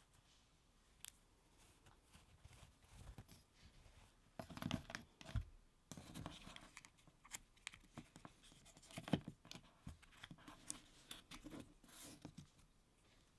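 Quiet handling of packaging: a cloth drawing glove rustling as it is pulled off and laid in a cardboard box, with soft taps, scrapes and clicks on the box and its foam insert as a stylus pen is lifted out. The loudest knocks come about five seconds in and about nine seconds in.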